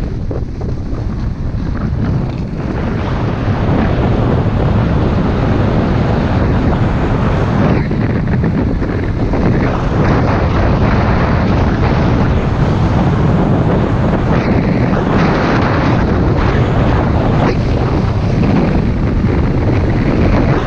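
Wind rushing over the microphone of a skier going downhill at speed, with the scraping hiss of skis on packed, groomed snow that eases off briefly twice.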